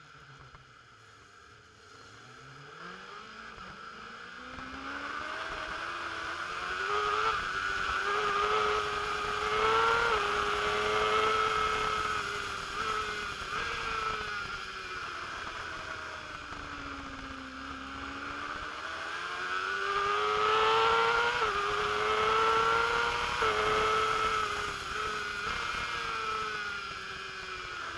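Race motorcycle engine heard from the bike's onboard camera, faint at first, then accelerating hard through the gears: the pitch climbs, with a quick drop at each upshift. Around the middle it falls in pitch as the rider eases off, then it climbs through the gears again.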